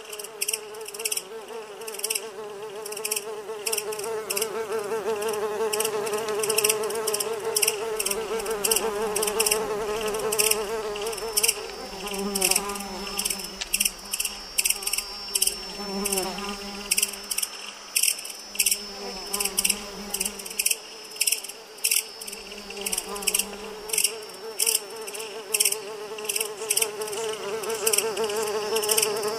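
A locust swarm: a dense, steady buzz of wings that wavers slightly in pitch, with sharp high clicks crackling through it several times a second.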